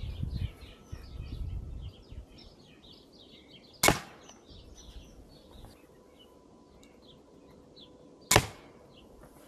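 Two sharp cracks from shots of an 80 lb crossbow pistol, about four and a half seconds apart, with birds chirping faintly behind them.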